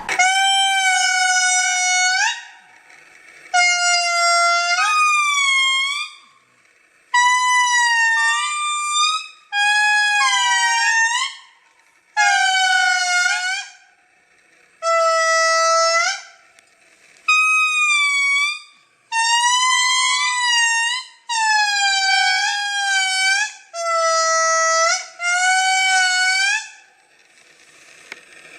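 Lemur calls: a series of about eleven high, drawn-out calls, each around two seconds long. Each call bends up and down in pitch, several rise at the end, and short gaps separate them.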